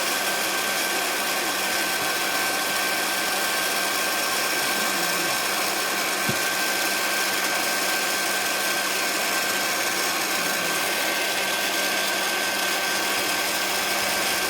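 Electric heat gun running steadily, its fan blowing with an even hiss and a thin constant whine, softening old paint so it can be stripped. A light knock comes about six seconds in.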